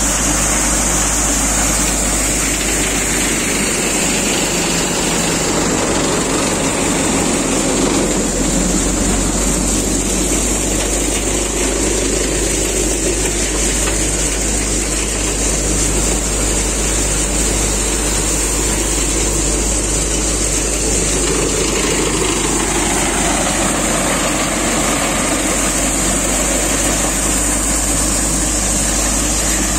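Tractor-driven threshing machine running steadily under the tractor's engine: a constant loud mechanical drone with a steady high hiss, as the machine threshes crop and pours out grain. A tone falls in pitch once, about two-thirds of the way through.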